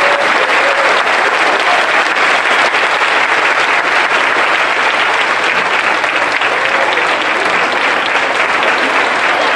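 Audience applauding, a steady, sustained clapping of many hands.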